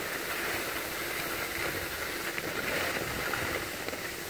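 Skis sliding over packed snow: a steady rushing hiss.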